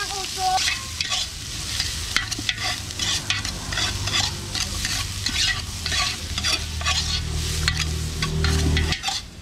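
A metal spatula scrapes and clanks against a large metal pot as garlic, ginger and onions sizzle in hot oil over a wood fire, in quick repeated stirring strokes. A low steady hum joins underneath about three seconds in and cuts off shortly before the end.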